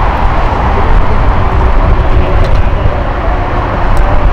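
Steady low rumble of jet aircraft noise across an airport, with faint steady whining tones over it.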